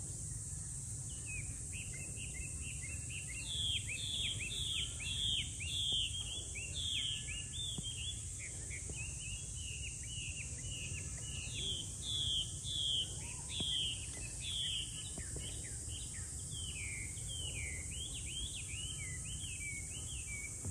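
A bird singing a long run of quick, down-slurred whistled notes, two or three a second, over a steady high-pitched hiss.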